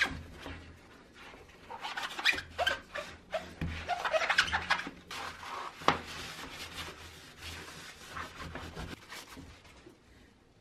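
Hand work on a vintage fan's parts: a run of clicks, knocks and rubbing or scraping, with a faint low hum that comes and goes, the sounds thinning out near the end.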